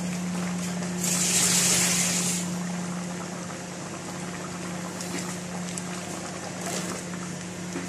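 Pot of mung bean and squash stew boiling on the stove, with a steady low hum underneath. A louder hiss rises about a second in and fades after a second or so.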